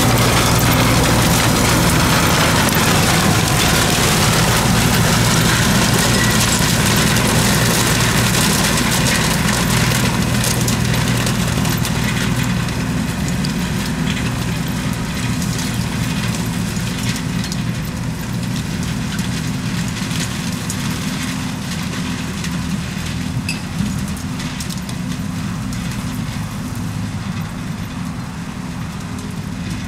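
Tractor's diesel engine running steadily, with a wide hiss of machine noise over it. The hiss dies away and the whole sound grows gradually quieter over the second half.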